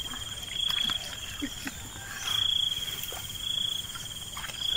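A cricket trilling in high, even bouts of about a second, three times, with faint taps and small splashes between.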